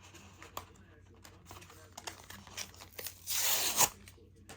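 Foil wrapper of a Pokémon booster pack crinkling under the fingers, then torn open in one loud rip about three seconds in.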